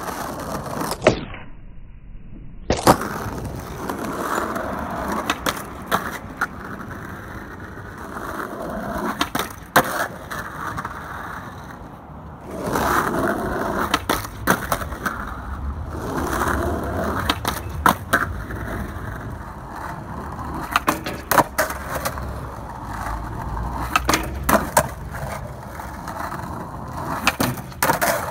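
Skateboard wheels rolling on rough asphalt, broken by repeated sharp cracks of the tail popping and the board landing. Partway through, a louder grinding stretch as the wooden deck's nose slides along a metal flatbar.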